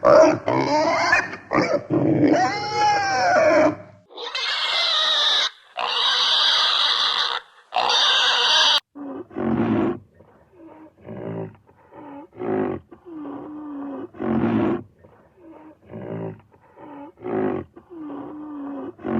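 A run of animal calls. First come pitched, gliding squeals for about four seconds, then three long noisy rasping calls, then a string of short, low, grunting calls.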